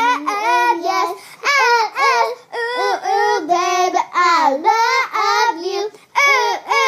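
A child singing a made-up love song unaccompanied, in short held phrases.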